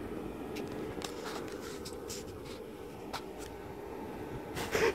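Blower fan of an airblown Halloween inflatable running steadily, with scattered light clicks and a louder rustle near the end.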